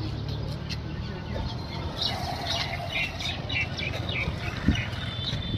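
Roadside background noise: a steady low hum, with a quick run of short, high chirps starting about two seconds in and lasting under two seconds.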